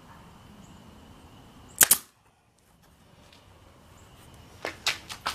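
Nail gun firing a nail into a wooden jig: one sharp double crack about two seconds in, followed near the end by a few lighter clicks.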